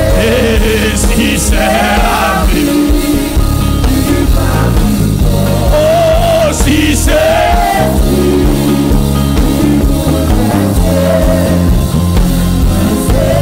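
Loud live church praise music: singers carry a sung melody over a band with a heavy, steady bass.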